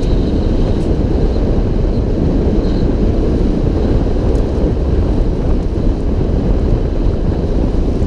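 Steady, heavy wind rumble on an action camera's microphone held out from the roof of a moving safari vehicle, over the running noise of the vehicle on a dirt road.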